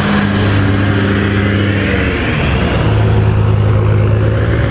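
Car engine running steadily. Its pitch dips about two seconds in, then it settles into a steady drone again.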